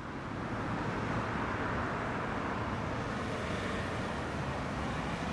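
Road traffic: cars approaching on a road, a steady rush of engine and tyre noise that swells over the first second.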